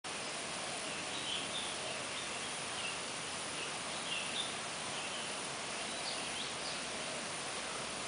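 Steady outdoor hiss with frequent short, high chirps of small birds calling in the background.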